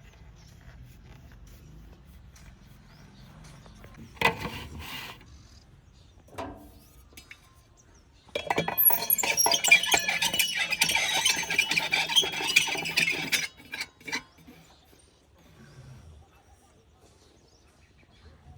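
JCB 3DX backhoe loader at work: a low engine hum throughout, a short clatter about four seconds in, and a dense metallic clattering and rattling for about five seconds from around eight seconds in.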